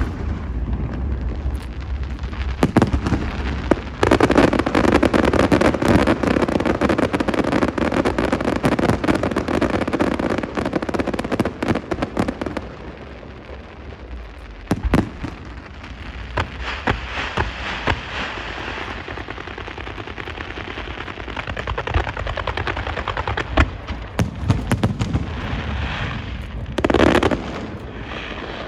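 Fireworks show: sharp bangs of bursting shells over dense crackling. A long loud barrage of rapid popping runs from about four seconds in to about twelve, then lighter crackle with scattered bangs, and another loud burst near the end.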